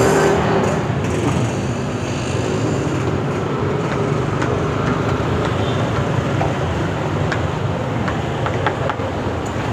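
Steady rumbling background noise, like road traffic or a running blower, with a few light metallic clinks of a ladle against wire grill baskets in the second half.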